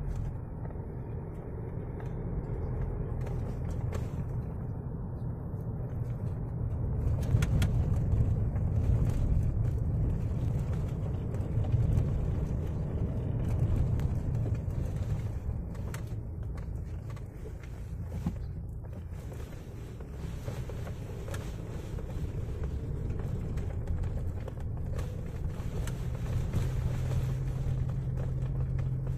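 Car cabin noise while driving on a rough unpaved road: a steady low engine and tyre rumble, swelling a little in the middle, with a few faint knocks from bumps.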